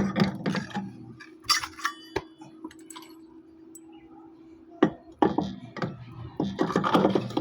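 Honda ADV160 scooter running, with irregular metallic clinking and clattering from the CVT over a steady engine hum. The owner puts the noise down to loose stock flyballs (variator roller weights).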